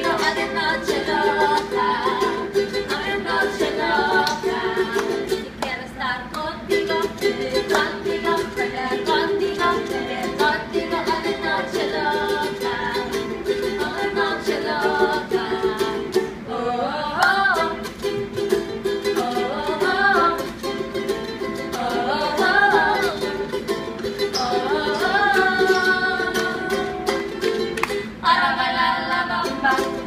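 A group of women singing a song together, accompanied by a strummed ukulele.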